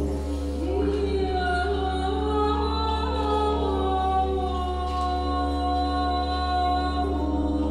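Slow film-score music of long held notes with wordless voices, choir-like, over a steady low drone.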